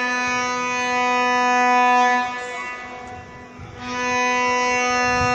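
A vuvuzela blown by a spectator in two long, steady blasts on the same note, the first ending about two seconds in and the second starting about a second and a half later.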